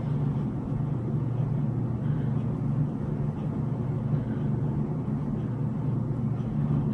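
Steady low hum of a motor-driven appliance running in the room, even throughout.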